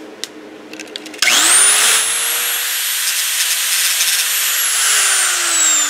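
A handheld angle grinder with a cut-off disc spins up about a second in, then cuts through a flat steel bar clamped in a vise. The motor's whine holds steady under a loud hiss of cutting, then sinks in pitch over the last second and a half as the cut goes on.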